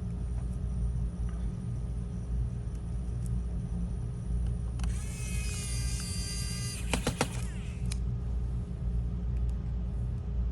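Small electric screwdriver whining for about two seconds as it drives a laptop screw, followed by a few sharp clicks. A steady low rumble runs underneath.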